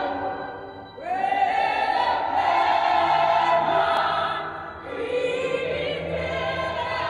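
Gospel singing from a film soundtrack played through cinema speakers: a girl's solo voice holds long notes over a church choir. A new note swells in about a second in, and another starts lower about five seconds in.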